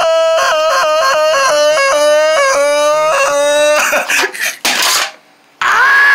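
A performer's voice wailing in a high, stretched-out cry, the pitch breaking in a sobbing rhythm about three times a second, as if pleading "wake". About four seconds in comes a brief burst of rustling, then after a short pause a long, high, held wail, the drawn-out "up".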